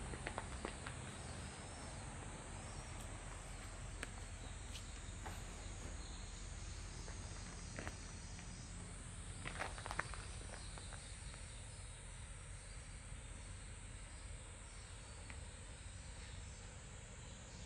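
Steady high-pitched insect chorus from the surrounding forest, over a faint low rumble, with a few soft clicks about ten seconds in.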